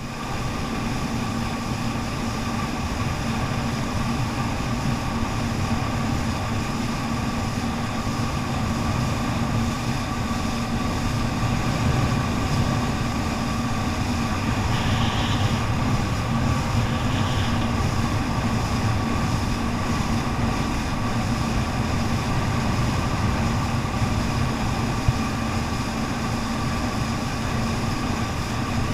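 Jet ski engine running steadily under way: a constant drone with a few fixed tones held over a rushing noise, with no change in speed.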